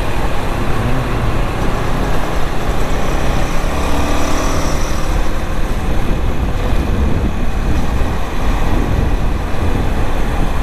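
Wind rush and low buffeting on the action camera's microphone while riding a Honda CBR150R at about 40 km/h, the single-cylinder engine running under it with road traffic around. A faint rising pitch comes through about four seconds in.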